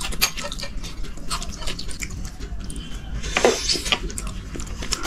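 Spoon and fork clinking and scraping on dishes as food is served out, small clicks coming throughout, with a brief louder rustle about three and a half seconds in.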